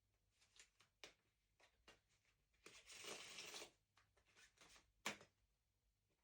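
Playing cards being handled: soft scattered flicks and slides, a second-long burst of cards rasping together about three seconds in, and a sharp snap of a card just after five seconds.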